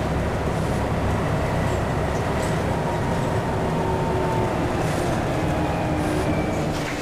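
Scania N94UD bus heard from inside the passenger cabin, its engine and driveline running under way with a steady low rumble. A faint whine slowly falls in pitch through the second half as the bus slows.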